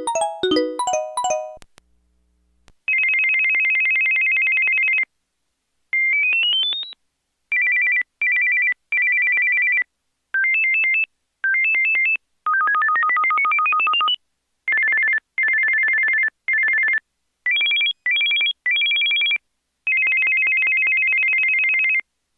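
Samsung SPH-A840 cell phone playing ringtones through its small speaker. A short melodic tone ends in the first second or so. After a pause comes an electronic trill ring: pairs of high tones warbling in on-off bursts of different lengths, broken by a couple of rising sweeps.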